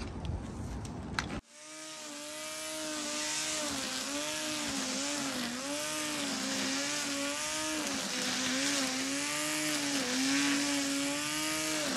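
Corded electric string trimmer running as it cuts long grass. Its motor whine dips and recovers in pitch again and again as the line bites into the grass. The whine starts abruptly about a second and a half in, after a short rustling noise.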